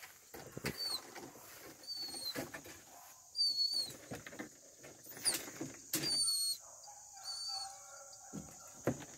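Small birds chirping in short, high notes every second or two, over soft rustling through tall grass. A faint drawn-out call comes about seven seconds in.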